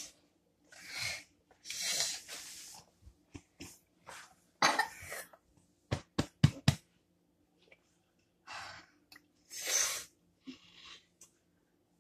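A person breathing hard and coughing in short hissy bursts, half a second to a second each, after dancing. About six seconds in comes a quick run of sharp clicks.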